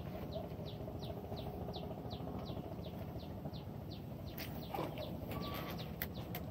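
A bird calling a fast, regular series of short, high chirps, each falling in pitch, about three a second; the calls stop about two-thirds of the way through, and a few faint clicks follow near the end.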